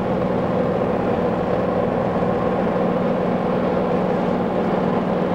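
Light airplane's engine and propeller droning steadily at constant pitch, heard inside the cockpit during flight.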